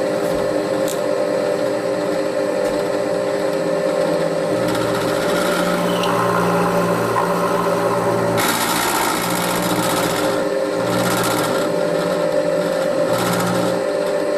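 M-head milling machine running with its end mill cutting a flat on a drive shaft: a steady motor hum throughout, joined from about a third of the way in by a lower drone that comes and goes and, past the middle, a harsher cutting noise in bursts.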